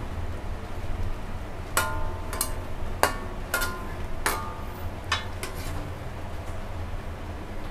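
Kitchenware clinking: about seven sharp clinks, each with a short ring, spread over a few seconds as the finished dish is handled, over a steady low hum.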